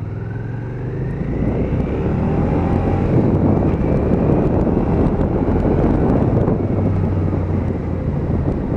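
Suzuki SV650's V-twin engine pulling away, its pitch rising over the first two seconds and getting louder, then running steadily at speed.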